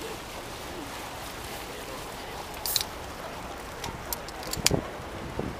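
Steady wash of a canal boat under way on the water, with a few sharp clicks and knocks; the loudest comes near the end.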